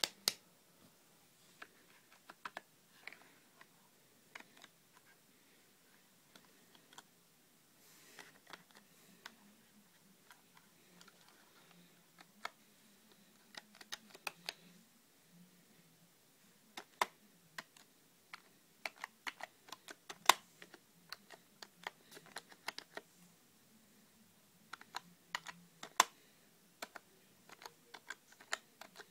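Typing on a full-size USB computer keyboard: irregular runs of keystroke clicks with short pauses between them.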